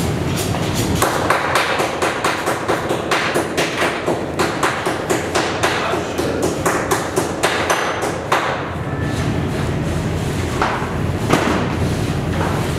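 Butchering work on meat: a quick, even run of knocks and thuds, about three a second, stopping about eight seconds in, then a few scattered knocks with one sharp one near the end.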